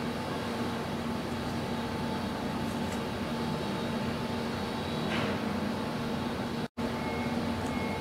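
Steady low mechanical hum with a few constant tones running under a faint noise, broken by a split-second dropout near the end where the recording is cut.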